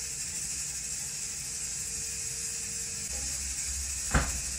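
Steady hiss of kitchen room tone, then a single sharp click about four seconds in as the refrigerator door is worked.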